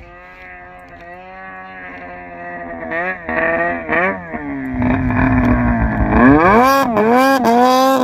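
Two-stroke snowmobile engine revving and drawing closer, growing steadily louder: short throttle blips about three and four seconds in, then loud running with a dip and rise in pitch near the end. It is called the loudest sled known to man.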